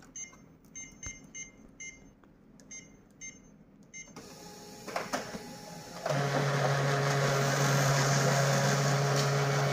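Control-panel keys of an HP LaserJet Pro MFP M227fdw beeping about eight times as they are pressed. About six seconds in, the laser printer starts printing a page: its motors run with a loud, steady low hum.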